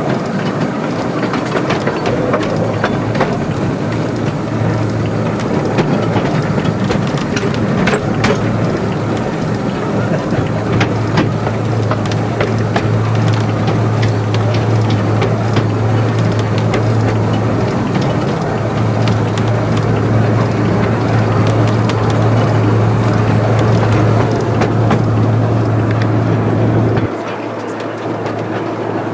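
Narrow-gauge Garratt steam train on the move, heard from aboard: a steady rumble of wheels on the track with scattered clicks over the rail joints and a low hum. The sound drops slightly near the end.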